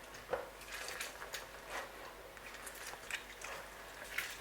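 A lemon being juiced by hand: wet squishing with a series of small, irregular clicks and knocks. The sharpest come about a third of a second in and near the end.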